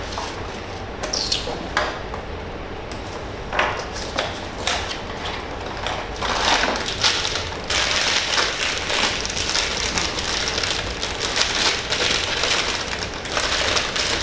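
Blind-box packaging being handled and opened: a few scattered clicks and taps, then busier rustling and crinkling with quick clicks from about halfway through.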